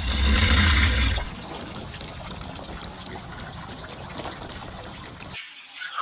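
Running water, with a louder rushing surge in the first second, then a steady rush that cuts off abruptly about five seconds in.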